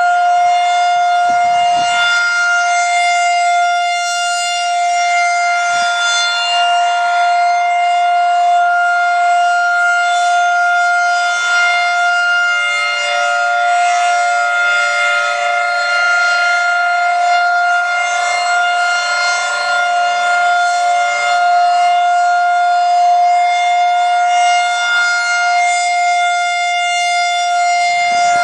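Federal Signal 2001-130 single-tone rotating electromechanical storm siren sounding its test, holding one steady, loud tone at full speed. Its level swells and eases slightly as it sweeps around.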